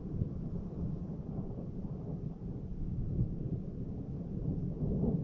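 Distant thunder rumbling on and on, swelling about three seconds in and again near the end.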